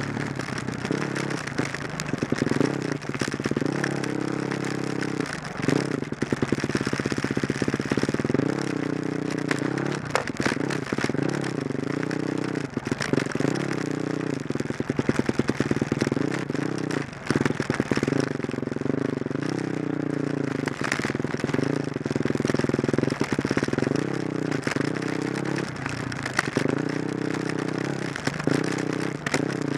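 Off-road vehicle's engine revving up and down again and again while riding a rough dirt trail, with rattles and knocks from the machine jolting over the ground.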